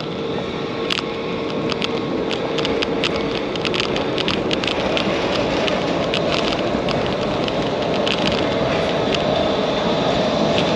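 Outdoor street noise heard while moving through a paved city square: a steady rush that grows gradually louder, with many small sharp clicks and rattles.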